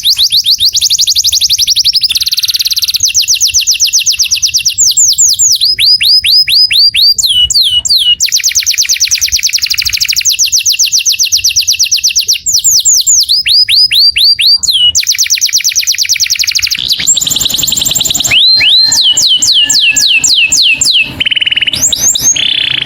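A canary singing a continuous song made of tours: runs of the same quick downward-sweeping whistled note repeated about six times a second, each run giving way to a new note type every second or two. About two-thirds of the way through it breaks into a denser buzzy roll, and near the end it holds a few short steady whistles.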